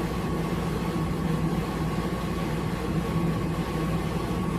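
Steady mechanical hum with a thin, even high tone over it, unchanging throughout.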